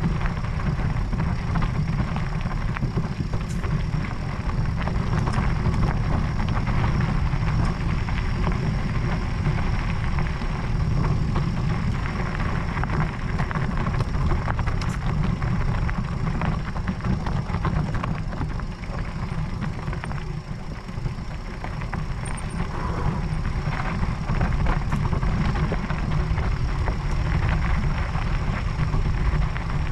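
Electric mountain bike ridden along a gravel track: tyres crunching over loose stones with scattered small clicks, over a steady low rumble.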